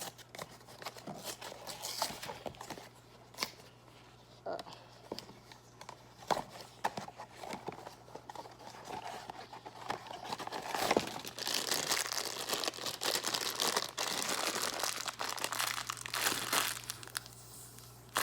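A Funko Mystery Minis blind box being torn open and its packaging crinkled by hand: scattered tears and clicks, then a longer stretch of steady crinkling in the second half.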